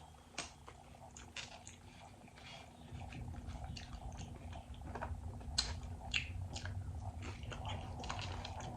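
Close-miked chewing of cheesy Doritos nachos, with irregular crisp crunches and wet mouth clicks over a low rumble that swells about three seconds in.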